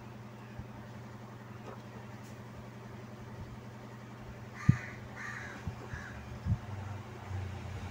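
A bird calls three times, about five to six seconds in, over a steady low electrical hum. A few short knocks from handling the circuit board come with it, the sharpest just as the first call starts.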